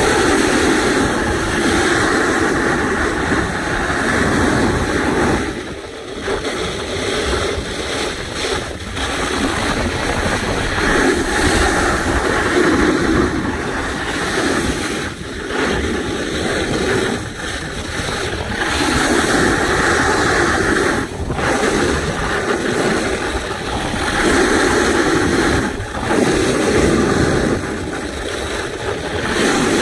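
Snowboard sliding and carving down firm groomed snow, a loud rushing scrape that swells with each turn every few seconds, with wind rushing over the microphone.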